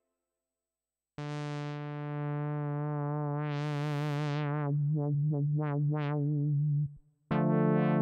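Synth brass patch on an ASM Hydrasynth Explorer: after about a second of silence a held chord comes in, brightens and swells in the middle with a wavering vibrato, then pulses in short swells. It cuts off just before the end, and a new chord starts with repeated swells.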